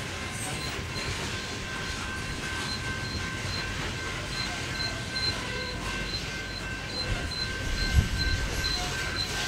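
Loaded coal hopper cars of a freight train rolling past, steel wheels rumbling steadily on the rails with a thin, steady high-pitched wheel squeal. A heavy thump sounds about eight seconds in.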